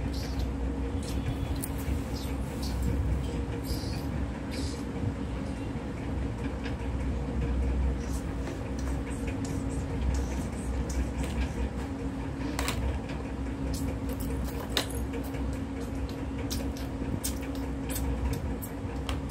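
A steady low hum and rumble with a faint droning tone, broken by scattered light clicks and taps, sharpest about 12.5 and 15 seconds in.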